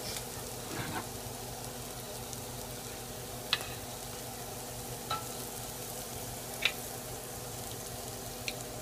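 Chopped onions frying in oil in a pot: a steady sizzle, with a few sharp clicks every second or two in the second half.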